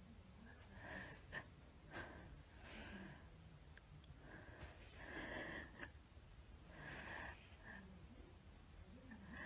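Faint breathing: several short breaths at irregular intervals.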